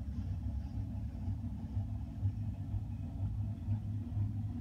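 Loaded Norfolk Southern coal hopper cars rolling past: a steady low rumble of steel wheels on the rails, swelling slightly and unevenly.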